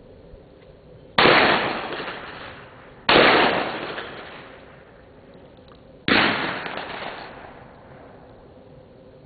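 Three shotgun shots, the second about two seconds after the first and the third about three seconds later, each echoing and dying away over a second or so.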